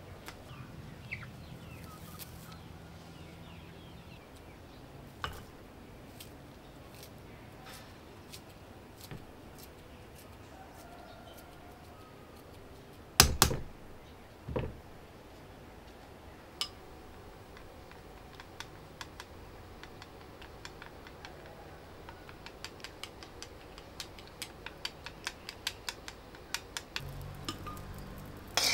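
Light clicks and knocks of handled objects, two louder knocks about halfway through, then a quickening run of light taps in the last third. Faint bird chirps in the first few seconds.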